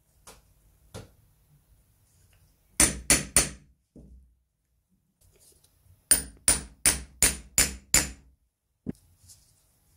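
A hammer striking a hollow leather punch, driving it through leather into a wooden block. Three quick blows come about three seconds in, then six evenly spaced blows between about six and eight seconds, then a single blow.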